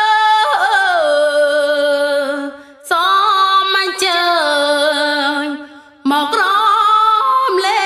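Background music: a woman's voice singing long, gliding, wavering phrases, three of them with brief pauses between.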